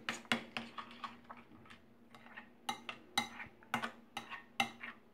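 Metal spoon stirring tamarind chutney in a glass bowl, clinking and tapping against the glass at an uneven pace, with a sparser spell before two seconds in.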